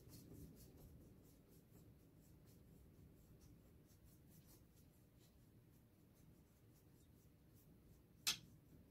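Faint, repeated scratchy strokes of a paintbrush being worked across a painted board. A single sharp click comes near the end.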